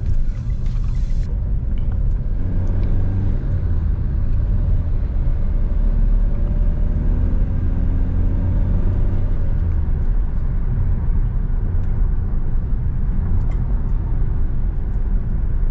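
A 2019 Hyundai Creta's diesel engine and its tyres on the road, heard from inside the cabin while driving: a steady low rumble, with faint engine tones rising and falling a few seconds in.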